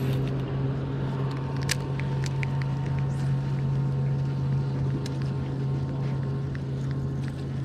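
Outboard motor running at a steady speed, a constant low hum. A few light clicks sound over it in the first half.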